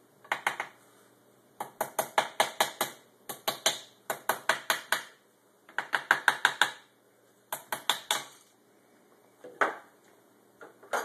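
Small hammer tapping on a camshaft bearing cap of a 2000 Yamaha YZF-R1 cylinder head to break the cap loose from its dowel pins. The sharp metallic taps come in quick runs of about six a second, with short pauses between runs and one lone tap near the end.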